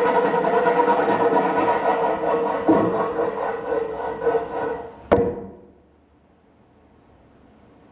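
Sound-effect music track: a loud, rasping, buzzing texture with a steady pitch and fine rhythmic pulsing. About five seconds in, one sharp knock cuts it off, and the sound then fades to near silence.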